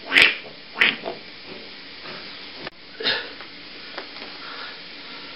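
Steady low hiss with three short breathy, rustling noises: one right at the start, one about a second in and one about three seconds in.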